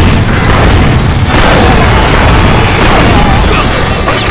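Loud booming fire-blast sound effect, a dense rushing explosion sound, laid over background music.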